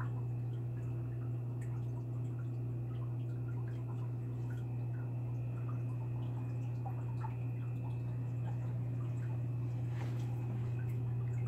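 Aquarium water trickling and dripping from the filter, over a steady low hum.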